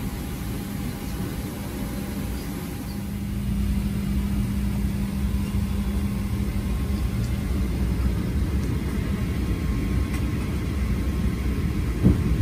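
Steady low rumble of a moving vehicle ride, growing a little louder after about three seconds. A steady low hum fades out about halfway through, and there is a brief thump near the end.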